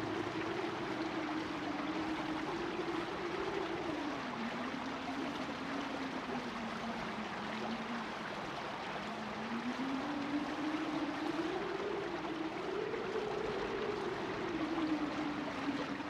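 Steady rushing sound like running water, with a low hum that slowly rises and falls in pitch.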